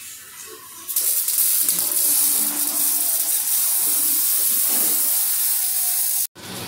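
Loud, steady hiss from a shop tool worked on the exhaust mid-pipe under the car, starting about a second in and cutting off suddenly near the end.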